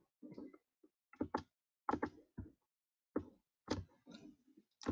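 A series of faint, irregularly spaced clicks and taps, about eight of them, from a computer mouse and keyboard being worked at a desk.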